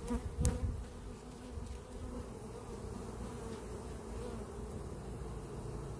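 Honeybees buzzing steadily around an open hive, with a single short knock about half a second in.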